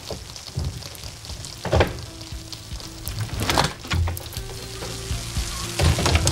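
A bunch of keys jangling and clicking in a door lock while a glass-panelled door is unlocked, with a few dull thuds from the door. Faint music plays underneath.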